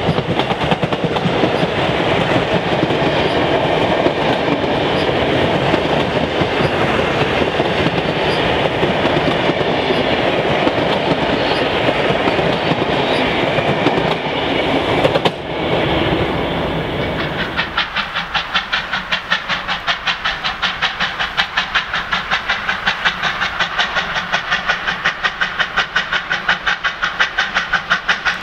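Passenger carriages of a steam excursion train rolling past on the track, their wheels clacking over the rail joints, until the sound cuts off suddenly about halfway through. Then a pair of R class Hudson steam locomotives approaches from a distance with a quick, even rhythm of exhaust beats.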